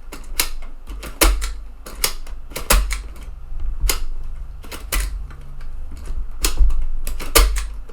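TEAC FD-235F 3.5-inch floppy drive's eject mechanism being worked by hand, about a dozen sharp mechanical clicks and clacks at an irregular pace. The eject works again after the repair but still needs a little push.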